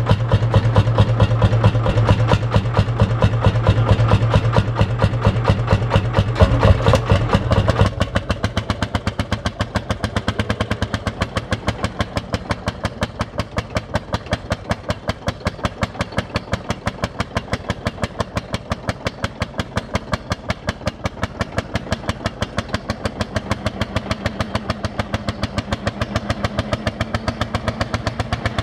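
Lanz Bulldog tractor's single-cylinder hot-bulb two-stroke engine running under load with a rapid, even thump as it pulls a field implement. Loud and close at first, then quieter and farther off from about eight seconds in.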